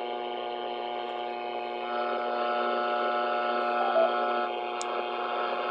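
HF radio receiver hissing with strong interference noise, read on the meter as twenty over S9, with a steady buzz of many stacked tones over it. A higher tone joins about two seconds in and drops out near the end, and a short beep sounds about four seconds in. The noise covers the band and, in the operator's words, makes HF absolutely useless.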